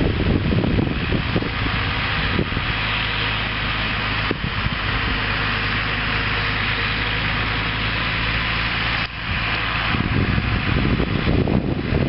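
Tractor diesel engines running steadily under load: a Case IH Maxxum 125 pulling a slurry tanker, with a John Deere 6810 ploughing alongside. A steady low engine drone sits under a constant hiss.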